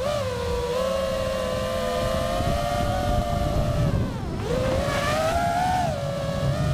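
Brushless motors and propellers of a 6S FPV quadcopter whining in flight. The pitch wavers slightly, then dips sharply about four seconds in and climbs straight back up.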